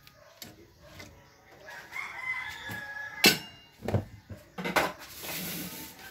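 A rooster crowing, one call with a wavering pitch lasting about a second. A few sharp knocks and clatter follow, the loudest about three seconds in, with a short hiss near the end.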